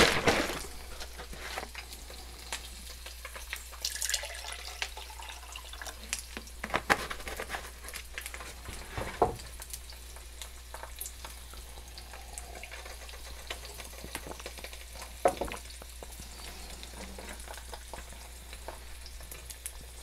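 Eggs frying in avocado oil in a pan, with a steady sizzle and fine crackle. A few sharp taps and knocks are heard over it.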